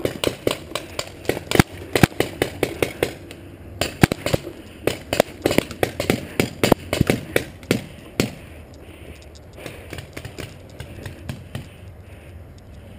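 Paintball marker firing in rapid strings of shots, several a second, with a short pause near the middle; after about eight seconds only a few fainter pops follow.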